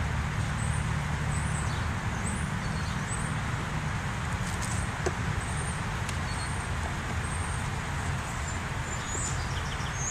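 Steady low rumble of wind on the microphone, with a bird's short high chirps repeating about once a second and a single sharp click about five seconds in.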